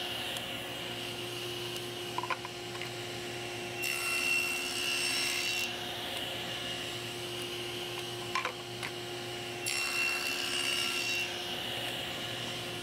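Table saw running steadily while cutting a groove partway into small hardwood boards. Its sound brightens during two passes, about four and ten seconds in, with a couple of light wooden knocks in between as boards are set down.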